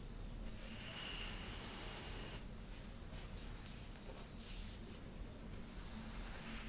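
Soft rustling of hair being worked through by hand or comb, in a few swishing strokes with a cluster of light clicks about three seconds in.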